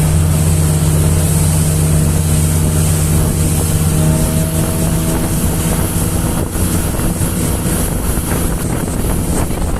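Motorboat engine running steadily with the boat under way, a constant low drone.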